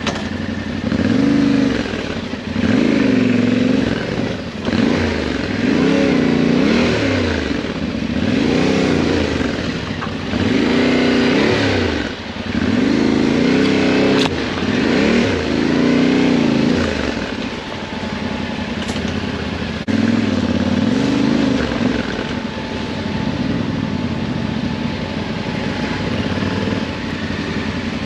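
Yamaha Ténéré 700's parallel-twin engine ridden at low speed in a low gear on a rough trail, its revs rising and falling over and over as the throttle is opened and closed, then running more steadily and a little quieter near the end.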